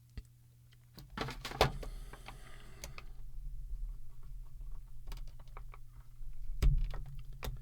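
Scattered clicks, knocks and scraping of plastic as an empty inkjet cartridge is worked open with tools. A few sharper cracks stand out, one about a second and a half in and two near the end, as the cartridge's inner chamber gives way.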